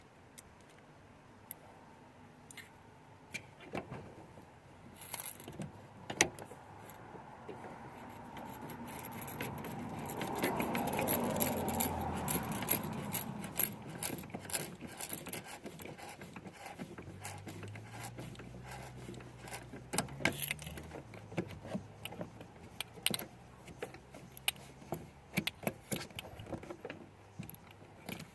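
Scattered metallic clicks and clinks of hand tools and small parts being handled while working inside a car door, with a louder stretch of noise that swells and fades around the middle.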